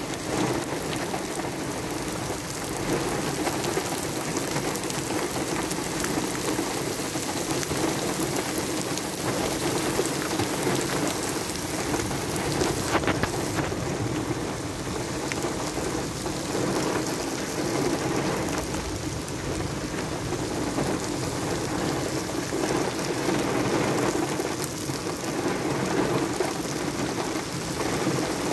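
Heavy monsoon downpour pouring steadily onto flooded pavement, a dense continuous hiss of splashing rain.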